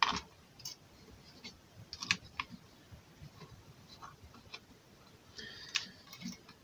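Scattered faint clicks and taps of fingers and a coin cell against the plastic and metal parts inside an open computer case, with a short scraping rustle near the end.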